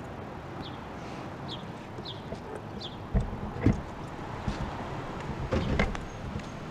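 Car door being handled and shut: two heavy thumps about halfway through, then a few more knocks near the end, over a steady outdoor background with a few short high chirps early on.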